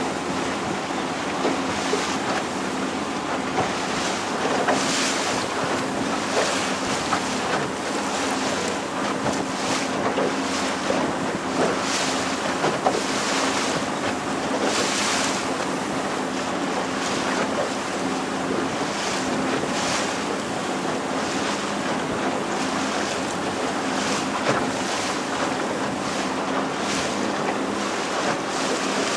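A small boat's motor running steadily under way, a low hum under the rush of water along the hull, with frequent short surges of splashing and wind buffeting the microphone.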